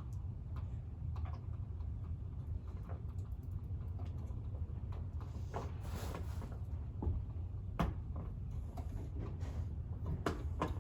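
Scattered clicks, knocks and rustles of parts being handled during assembly, with a sharp click about eight seconds in, over a steady low room hum.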